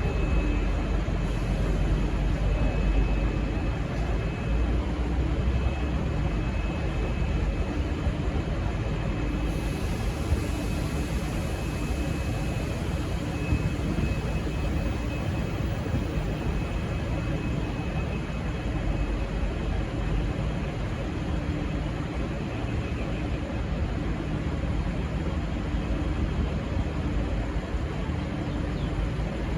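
Diesel-hauled passenger train moving out of the station with a steady rumble, heaviest in the first couple of seconds, and a faint high steady tone over it. No horn sounds.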